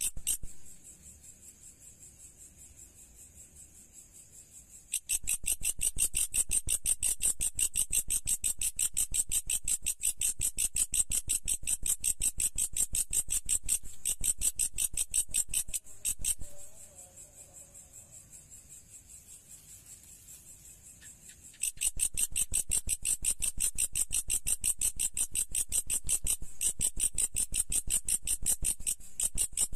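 Insect stridulation: a fast, even, high-pitched pulsing trill like a cricket or katydid calling. It gets louder about five seconds in, drops back around sixteen seconds and gets louder again at about twenty-two seconds.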